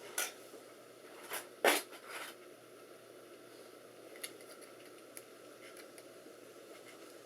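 Computer parts being handled while memory modules are tried in a desktop's RAM slots: a few sharp clicks and scrapes in the first two seconds or so, then a few faint ticks, over a steady background hiss.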